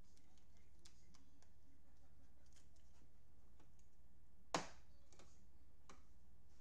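Faint clicks and light plastic handling sounds of a sleeved trading card held in gloved hands, with one sharper tap about four and a half seconds in and a smaller one near the end, over a steady low hum.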